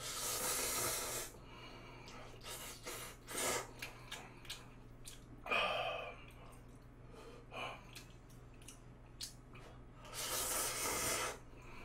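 A person slurping instant ramen noodles: one long noisy slurp at the start and another near the end, with wet chewing clicks and a short breathy sound about halfway between.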